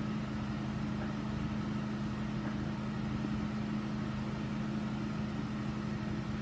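Steady low machine hum with one constant tone, unchanging throughout.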